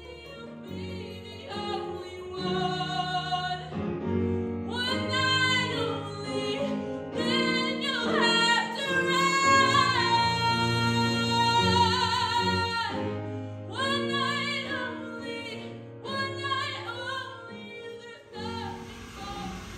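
A woman singing with upright piano accompaniment: sung phrases with long held notes and wide vibrato, stopping shortly before the end.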